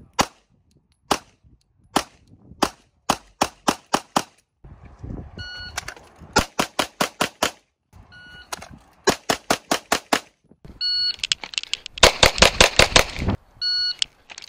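Pistol shots: a few single shots about a second apart, then several fast strings of about five or six shots a second. Before most strings comes a short electronic beep, a shot timer starting the drill.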